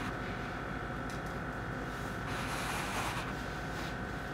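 Steady air-conditioner hum of room tone, with a brief soft rustle about two and a half seconds in.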